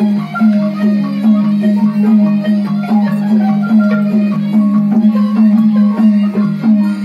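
Burmese traditional music accompanying marionette dancing: a fast, busy melody of struck, pitched notes on tuned percussion, played several notes a second over a steady low ringing line.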